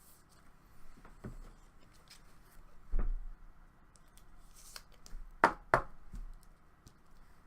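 Trading cards and card holders being handled on a table: a few soft knocks and clicks, a dull thud about three seconds in, and two sharp clicks in quick succession about five and a half seconds in.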